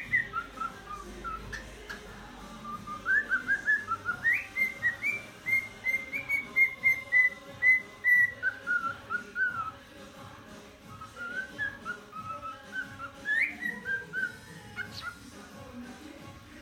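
Cockatiel whistling a learned human tune in runs of short, clear notes, with a dense run of notes in the middle, a brief lull, then more notes near the end.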